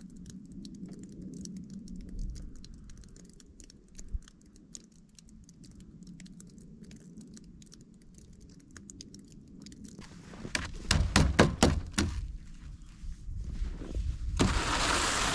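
Melting snow on a metal roof edge, faint scattered ticks of dripping and slush. About ten seconds in, a quick run of sharp, loud knocks, and near the end a brush sweeping snow off solar panels with a loud rushing sound.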